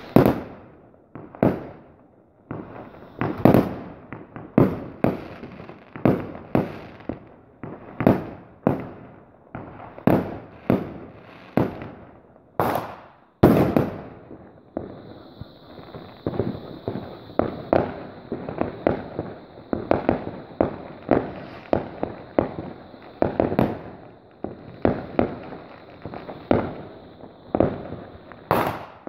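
Fireworks going off in an irregular series, about one sharp bang a second, each echoing as it dies away. From about halfway a steady high whistle runs beneath the bangs.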